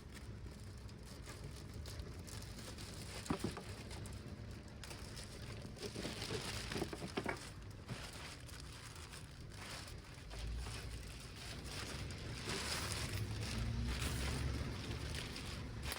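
Plastic wrapping crinkling and rustling as a new mud guard is handled and unwrapped, with a few sharp clicks about 3 s and 6 to 7 s in.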